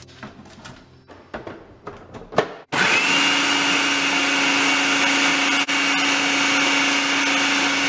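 A few light clicks and knocks as pieces of roasted smoked herring drop into a plastic food processor bowl. About three seconds in, the food processor motor starts with a quickly rising whine and runs loud and steady, grinding the herring fine, then winds down at the very end.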